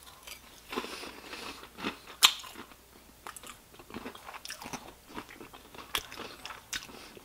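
A person biting into and chewing crispy Parmesan-crusted fried chicken, with irregular crunches of the coating. The sharpest crunch comes about two seconds in.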